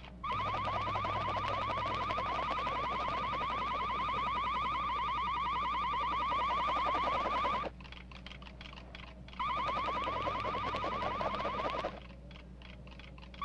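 A rapid, alarm-like electronic warble, sounding for about seven seconds, breaking off, then sounding again for a couple of seconds.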